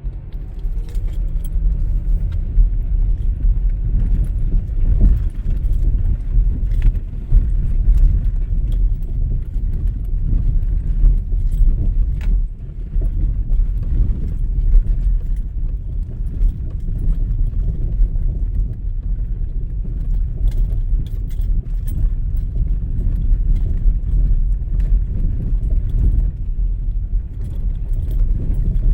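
Vehicle driving along a rough gravel logging road: a steady low rumble of the ride, with small rattles and clicks throughout.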